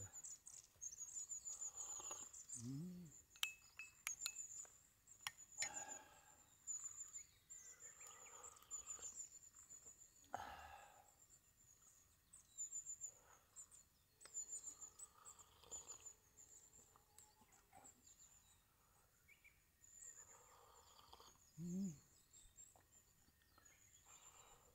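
Quiet countryside ambience: a faint high-pitched chirping trill repeating in short runs, with scattered bird calls. A short low rising voice-like sound comes twice, once near the start and once near the end.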